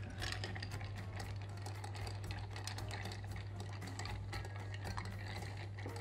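Bar spoon stirring ice cubes in a glass mixing glass: a continuous, rapid, irregular clinking of ice and spoon against the glass, over a steady low hum.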